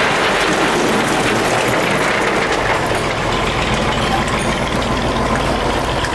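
Steady mechanical running noise, like an engine or heavy machine at work, with faint scattered clicks.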